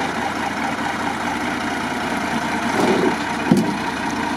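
Mercedes-Benz Unimog's diesel engine idling steadily, with a single short knock about three and a half seconds in.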